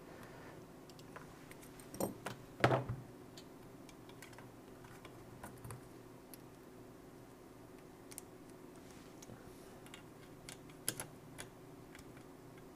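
Light clicks and taps of small MacBook Air logic-board parts being handled and fitted together on a silicone mat, with two louder knocks about two seconds in, over a faint steady hum.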